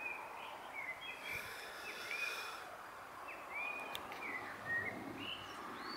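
Songbirds singing and chirping: a string of short, high whistled notes, several sliding in pitch, over a steady faint outdoor hiss.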